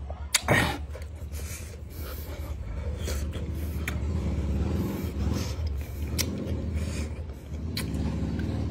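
A person chewing crunchy, juicy bilimbi (iba) fruit, with scattered wet mouth clicks and one loud short burst of noise about half a second in, over a steady low hum.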